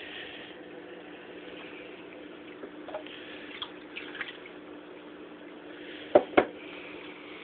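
Water splashing and trickling in an aquarium as minnows are poured in, over the steady hum and bubbling of the tank's aeration. Two sharp knocks about six seconds in.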